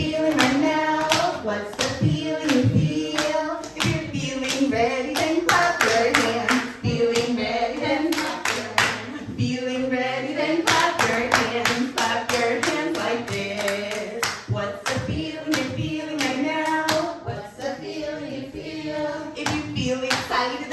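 Adults singing a children's song together, with hands clapping along in time.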